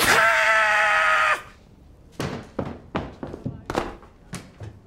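A man's long shout held on one pitch for about a second and a half, closing a furious tirade. It is followed by a handful of separate thuds and footsteps as he gets down off a table and walks away across the floor.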